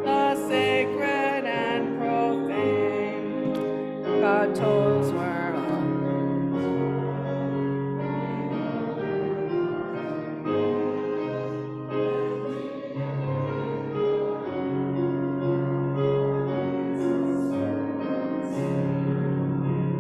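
Congregation singing a hymn with piano accompaniment. The voices drop away about six seconds in and the piano plays on.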